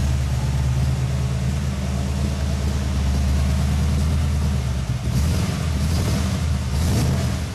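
Car engine running at steady revs, a low drone, with short bursts of hiss over it in the last couple of seconds.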